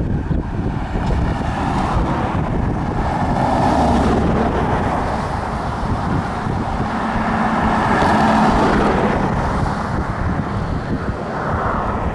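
Cars passing close on the road, their tyre and engine noise swelling and fading twice, about four seconds in and again about eight seconds in. Wind rumbles on the microphone throughout.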